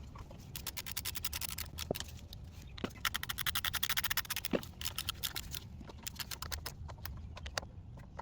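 Hand tools at work reassembling a push mower's carburetor: fast runs of clicks in two main stretches, with a few single sharper ticks between them.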